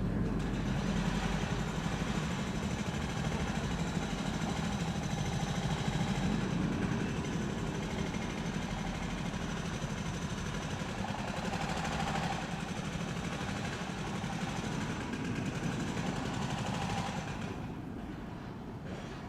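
Construction-site ambience dominated by a machine engine running steadily, with a dense mechanical din that thins out and drops a little near the end.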